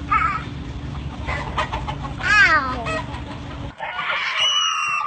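Chickens and a rooster calling: clucks and a falling call, over a steady low hum that cuts off abruptly near the end, followed by further pitched calls.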